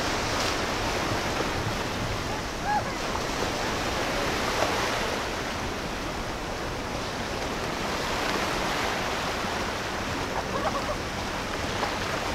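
Steady rushing and churning of rough, choppy water in a tidal inlet.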